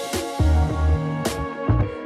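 Background music with drums and bass: held notes over a regular beat.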